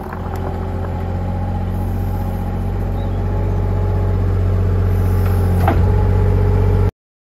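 Avant 423 compact loader's diesel engine running steadily, getting gradually louder, with a single knock about three-quarters of the way through. The sound cuts off abruptly just before the end.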